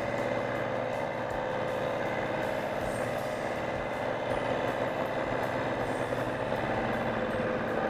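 Bridgeport milling machine running a six-insert carbide face mill at about 660 RPM, taking a shallow fifteen-thousandths finishing cut across cast iron: a steady machining sound with several steady tones, even in level throughout.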